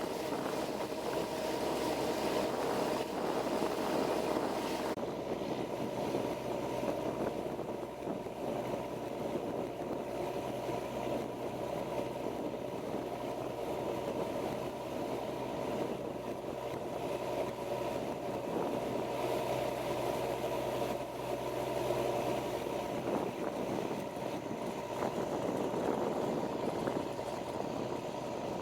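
A motor boat under way: water rushing and splashing as the hull cuts through it, over the steady drone of the boat's engine. A high hiss eases off about five seconds in.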